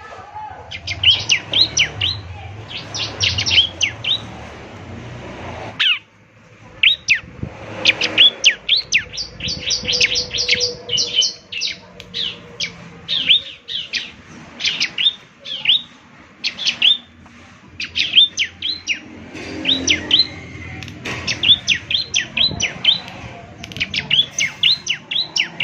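Bar-winged prinia (ciblek) calling in quick runs of short, high, sharply sweeping chirps, with a brief break about six seconds in.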